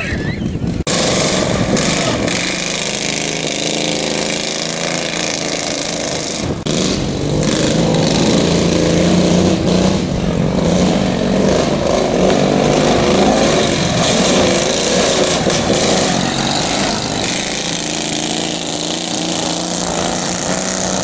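Several modified lawn and garden tractors racing, their engines running hard, the pitch rising and falling as they accelerate and back off.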